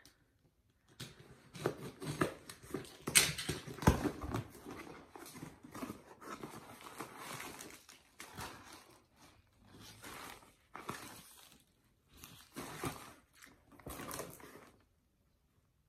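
Packaging being handled and opened: irregular rustling and crinkling with sharp clicks and knocks, loudest a few seconds in.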